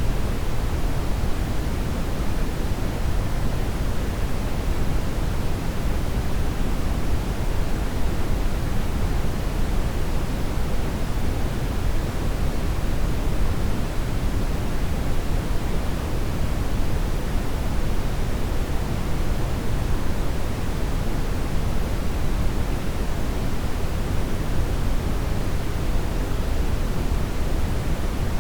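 Steady brown noise: an even, deep rushing hiss, heaviest in the low end, with no change or break.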